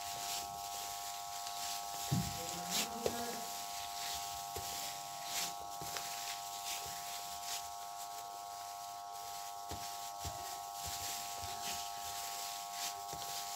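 Plastic-gloved hand mashing and mixing boiled potatoes and shredded chicken in a tray: irregular soft crinkling and squishing strokes, with a couple of sharper clicks about two and three seconds in, over a steady whine.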